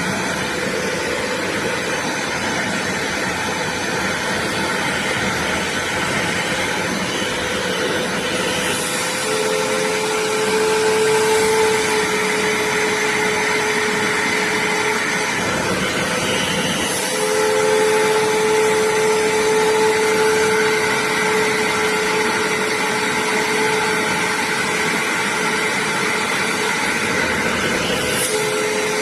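BISSELL Little Green spot cleaner's suction motor running steadily with a whine. The whine drops to a slightly lower, stronger tone about ten seconds in and again around seventeen seconds in.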